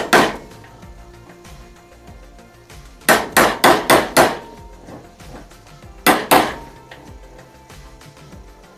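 Hammer blows on a steel bicycle sprocket to straighten it where it runs out of true: one blow at the start, a quick run of about five a few seconds in, then two more, some leaving a brief metallic ring.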